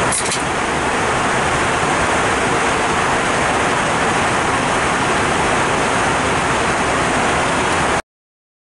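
Steady roar of an airliner cabin in flight, the engine and airflow noise heard in the galley, with a brief light clink just after the start. The sound cuts off suddenly about eight seconds in.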